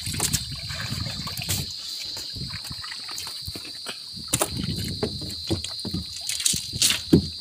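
Wet sea cucumbers being handled and shifted by hand on a boat's painted deck: irregular squelchy rustling with a handful of sharp knocks, over a steady high insect chirr.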